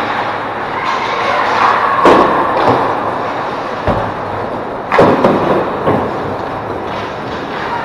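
Ice hockey play on the rink: a handful of sharp knocks from puck, sticks and boards, the loudest about five seconds in, over a steady rink hum.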